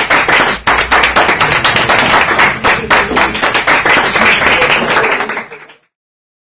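Audience applauding: a dense patter of hand claps that fades out and stops shortly before the end.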